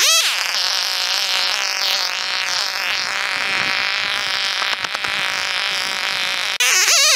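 Chainsaw running at a steady speed, its throttle swinging up and down again near the end.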